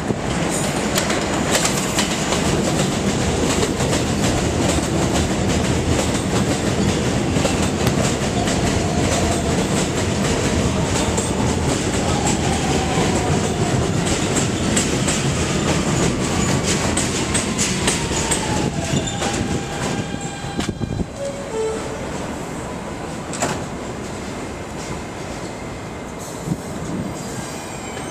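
New York City subway train running past, its wheels clicking over the rail joints, with a falling whine in the middle. The noise eases off about twenty seconds in.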